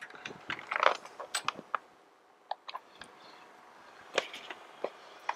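Scattered clicks, taps and a short rattle of cables and connectors being handled as a 3D printer is hooked up to a laptop.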